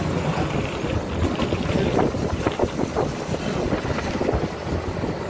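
Running noise of a moving vehicle with wind buffeting the microphone in irregular gusts.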